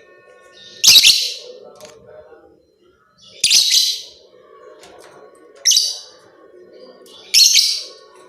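Lovebird giving loud, harsh calls, four in a row about two seconds apart, over faint steady chattering.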